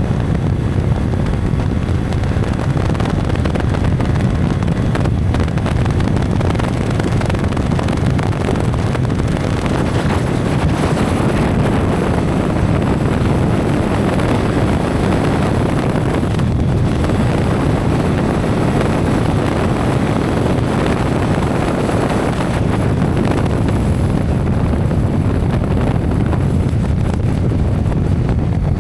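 Steady heavy wind noise buffeting an action camera's built-in microphone on a moving Yamaha R15 V3 motorcycle, mostly a low rumble. The bike's riding noise sits underneath without any clear engine note standing out.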